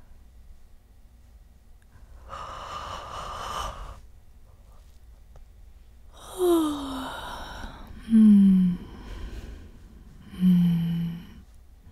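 A man yawning: a long breath first, then the yawn itself, his voice sliding down in pitch twice. It ends with a short, low contented hum, "mmm".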